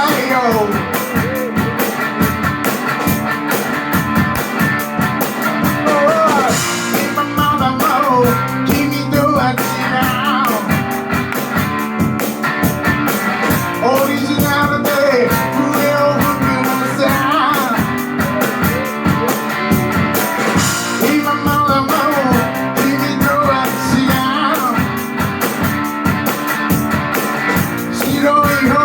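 Rock and roll band playing live: a guitar with gliding, bent notes over a steady, busy drum beat and bass.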